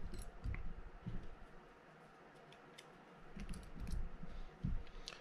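Light clicks and dull handling knocks from the side plate of a Shimano TLD15 lever-drag reel being worked by hand, in two bouts: during the first second and again from about three and a half to five seconds in, quieter in between.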